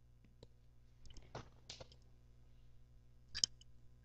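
A few faint, scattered clicks, the loudest about three and a half seconds in, over a low steady electrical hum.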